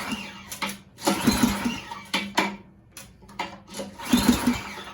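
Recoil starter on a new Ariens 24-inch snowblower's small single-cylinder engine being pulled on a cold start with choke on: the rope whirs as the engine cranks over in strong pulls about a second in and again near the end, with smaller knocks between.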